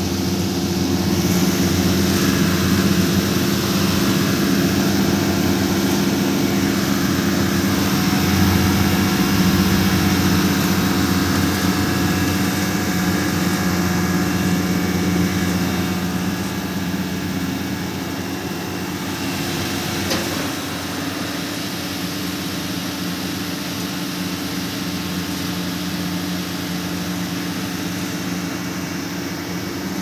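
Rotary compressor and exhaust fan of a homemade dehumidifier built from window AC coils, running with a steady hum and rush of air. The level eases a little about halfway through, and there is one short click a few seconds later.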